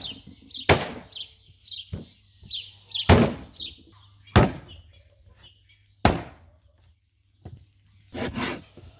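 Meat cleaver chopping through beef tail (oxtail) on a wooden cutting board: sharp, irregular chops about a second or so apart, the last two in quick succession. Small birds chirp repeatedly behind it.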